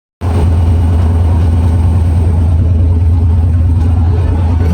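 Train running: a loud, steady low rumble that starts abruptly just after the recording begins.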